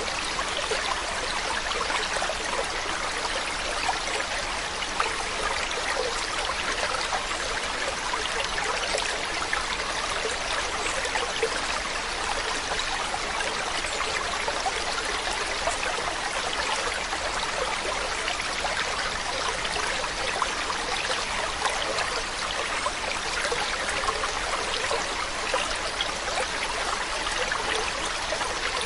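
Stream water running over rocks, a steady babbling and trickling rush.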